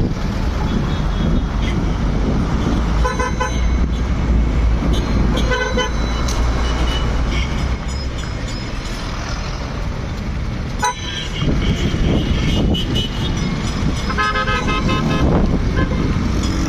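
Road traffic running past, with car horns beeping several times over a steady low rumble.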